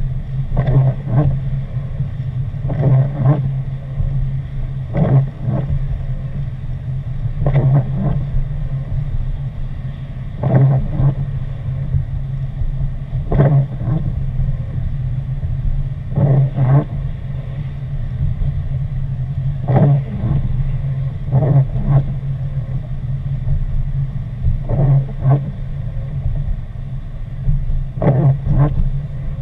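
Steady low drone of a car driving on a wet road, heard from inside the cabin. The windshield wipers sweep across the rain- and sleet-wet glass in pairs of strokes about every three seconds.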